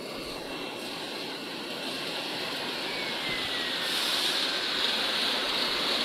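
A bubble washing machine's ring-type air blower running, forcing air into the water tank so the water churns and bubbles: a steady rushing noise of blower and bubbling water that grows gradually louder.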